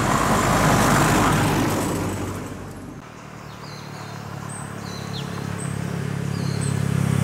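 A road vehicle passes, its noise swelling and then fading over the first two and a half seconds. Then a motor scooter's engine hums steadily, growing louder as it approaches, with a few faint high chirps.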